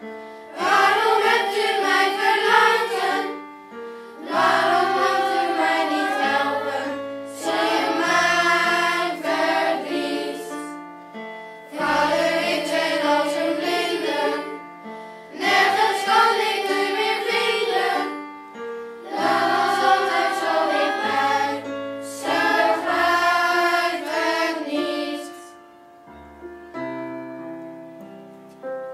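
Children's choir singing a song in phrases of a few seconds, over a piano accompaniment. Near the end the singing stops and the piano plays on alone, more softly.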